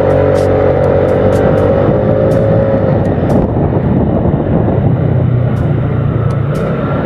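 Motorcycle running as it rides along a street, its engine drone mixed with wind and road noise that grow denser after about three seconds. A steady droning tone carries through the first three seconds and then fades.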